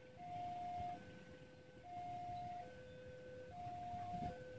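An electronic warning alarm sounds two alternating tones, a higher then a lower, each held just under a second, in a steady hi-lo cycle.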